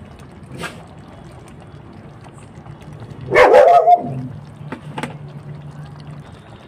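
A dog barks briefly a little past halfway through, the loudest sound here. Around it there is only a low, steady hum for a couple of seconds and a few faint clicks.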